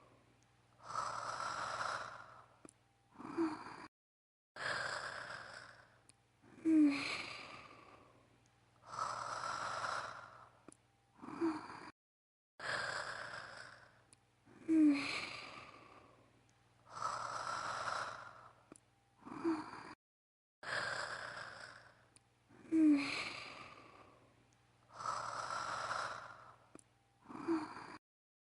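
Voice-acted female snoring, looped. Each cycle has a sharp inhale with a short pitched snore, then a long breathy exhale, and the same pattern repeats about every eight seconds.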